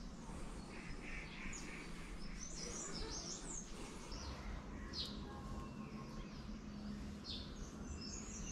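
Birds chirping now and then in short high calls, a few of them quick downward-sliding notes, over a faint low steady hum of background noise.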